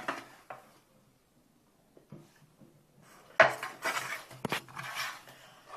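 A serving utensil scraping and clattering against a metal roasting tin: a few faint clicks, then a louder stretch of scraping with two sharp knocks starting about three and a half seconds in.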